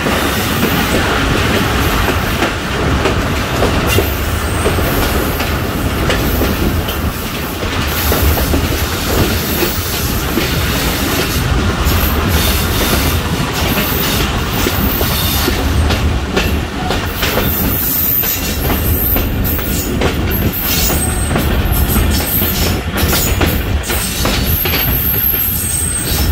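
Passenger train running, heard from on board: a steady low rumble of the carriage with the wheels clattering over the rail joints. Thin high wheel squeals come in over the second half.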